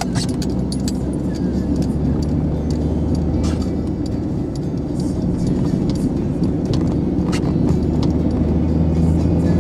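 Car engine and road noise heard from inside the cabin while driving, a steady low drone with a few scattered clicks and rattles.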